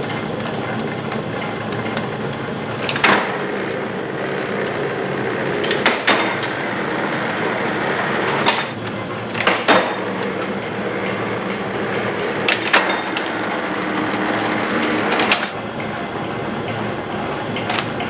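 Old workshop machine running steadily, with a sharp knock every few seconds.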